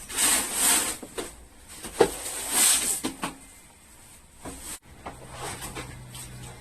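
Anti-static mat being spread and smoothed over a wooden workbench top: two bursts of rubbing and sliding, with a sharp knock about two seconds in and a few lighter knocks. A faint steady hum follows near the end.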